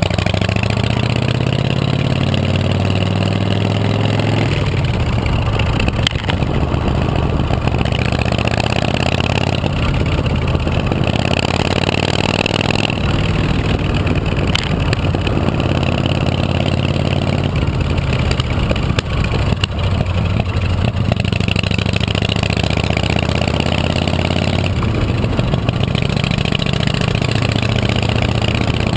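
Chopper motorcycle engine running continuously, its pitch rising and dropping back several times as it is revved up.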